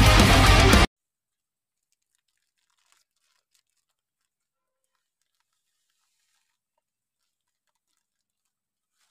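Loud rock music that cuts off abruptly about a second in, followed by near silence with very faint crinkling of a plastic bait bag being handled.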